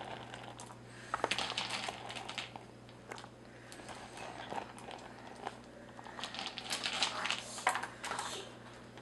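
Broken crayon pieces clicking and rattling as they are dropped into a silicone mold, in two bursts of rapid small clicks.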